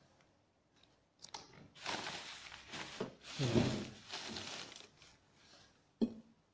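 Close rustling and crinkling of something being handled, starting about a second in, loudest around three and a half seconds and fading out, then one sharp click near the end.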